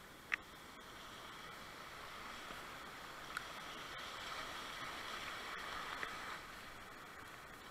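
Whitewater rapids rushing around a kayak as it runs down a rapid. The rush grows louder through the middle and eases near the end, with a sharp click just after the start and a couple of fainter ones later.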